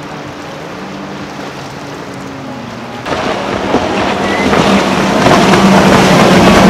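Center-console boat's outboard engines running at speed. For the first three seconds they are distant and steady. From about three seconds in they are much louder, with a rush of water, and they grow louder still as the boat passes close.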